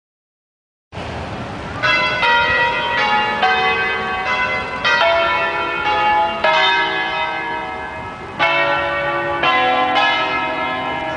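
Church bells of several different pitches struck one after another in an uneven tune, each stroke ringing on under the next, starting about a second in.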